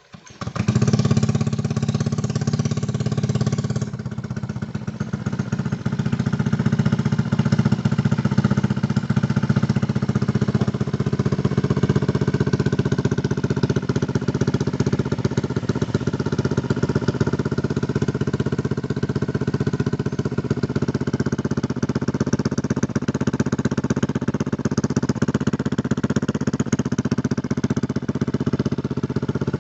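Honda Vario scooter's single-cylinder four-stroke engine running through an aftermarket stainless NLK cone hi-mount exhaust. It comes in loud at once, runs with a louder, brighter note for about the first four seconds, then settles into a steady idle.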